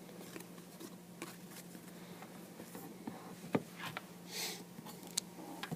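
Faint handling of trading cards: a few light clicks and a brief swish about four and a half seconds in as cards are slid and flipped, over a low steady hum.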